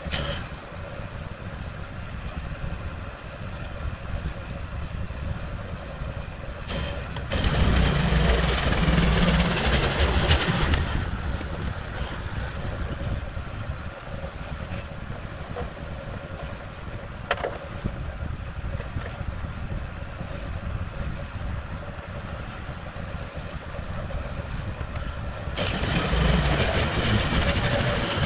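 Gasoline engine of a portable band sawmill running steadily. It grows louder, with a hiss on top, twice: for about three seconds some seven seconds in, and again near the end while the band blade cuts through a log. A single sharp click comes about halfway through.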